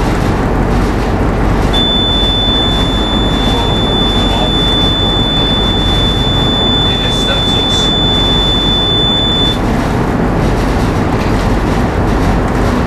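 Steady loud rumble of a tugboat's diesel engines heard on board while under way. About two seconds in, a single steady high-pitched tone starts and holds for about eight seconds before stopping.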